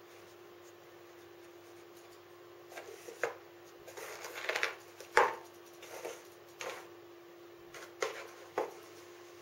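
Egg carton knocked, tapped and nudged about on a hard floor by a cat pawing at treats hidden inside: a run of light knocks and short rustles starting about three seconds in, the loudest knock about halfway through.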